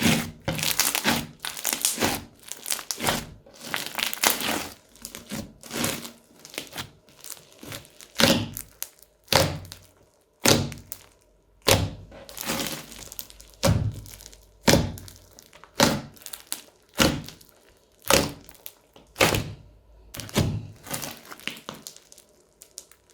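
Crunchy slime loaded with beads and foam bricks being squeezed and pressed by hand, crackling and popping in short bursts about once a second.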